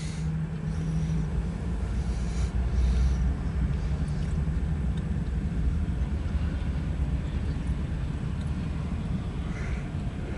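Diesel locomotive of a freight train running, a steady deep rumble.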